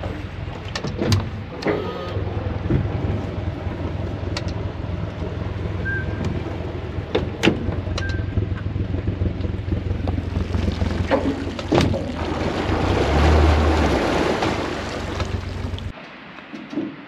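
Honda four-stroke outboard running slowly, a steady low hum, with a few sharp knocks on the aluminium hull. From about two-thirds of the way in, a rising hiss and scraping as the hull pushes through reeds into the shallows, before the sound cuts off near the end.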